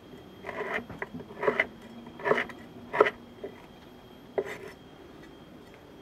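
Chef's knife slicing through a block of terasi (dried shrimp paste) and knocking on a wooden cutting board, five separate strokes over about four seconds.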